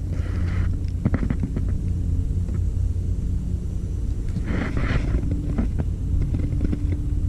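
Steady low rumble with a faint hum running under it, broken by a few short clicks about a second in and brief rustling around the middle.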